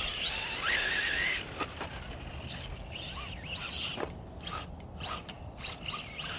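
Electric RC rally car's motor whining, its pitch rising and falling with the throttle, for about the first second and a half; after that only fainter short chirps and sweeps.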